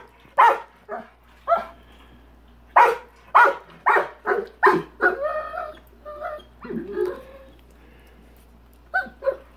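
Rottweiler barking in short, sharp single barks, about two a second: a run of three, then a run of five. These give way about halfway through to higher, drawn-out whining yelps, and after a short pause two more barks come near the end.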